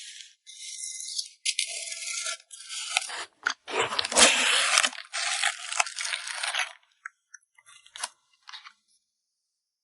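Packing materials being handled, crinkling and rustling in irregular bursts, loudest near the middle. A few small clicks follow.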